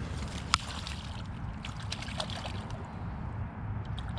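A bass tossed back into the water: one sharp slap on the surface about half a second in, followed by low, steady water and wind noise.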